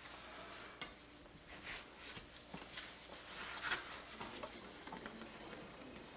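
Faint, irregular wiping and scraping strokes against window glass, with a few light clicks, loudest a little past halfway: the edge of freshly applied, still-wet security window film being wiped down.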